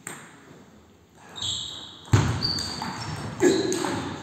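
Table tennis rally: the ball clicks off the bats and the table, and shoes squeak on the hall floor. The loudest hits come about two seconds in and again about a second and a half later.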